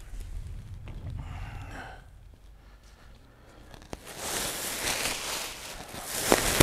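Plastic bubble-wrap air pillows rustling and crinkling as they are pulled out of a wooden shipping crate, starting loudly about four seconds in, with a click or two. Before that there is only a faint low rumble.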